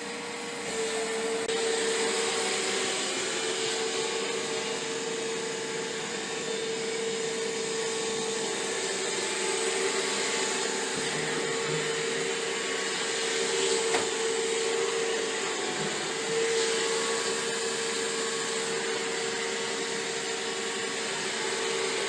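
iRobot Roomba i7+ robot vacuum running: a steady motor hum with a whooshing hiss from its suction fan and brushes, stepping up in level about a second in.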